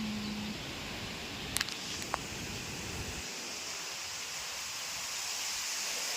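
Strong storm wind rushing, with low buffeting on the microphone that drops away about three seconds in, leaving a steady hiss. Two faint clicks sound about a second and a half and two seconds in.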